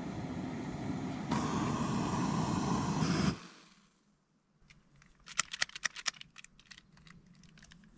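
MSR backpacking canister stove burning under a pot with a steady roar that grows louder about a second in and cuts off abruptly at about three and a half seconds as the flame is shut off. A run of light clicks and crinkles follows.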